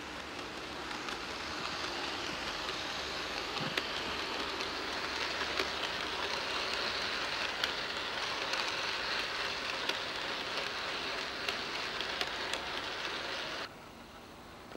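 OO gauge model train, two Heljan Class 47 diesel locomotives double-heading Hornby coaches, running along the track: a steady rolling hiss that grows louder as it comes past, with scattered sharp clicks. The sound drops away suddenly near the end.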